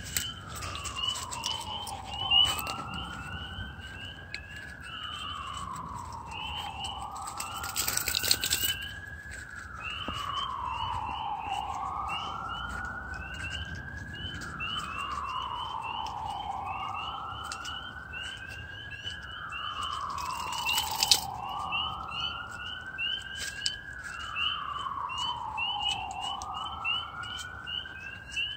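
A distant emergency vehicle siren wailing, rising and falling in pitch about every four and a half seconds, over a steady chorus of short, high frog peeps. Two brief rustling noises break in partway through.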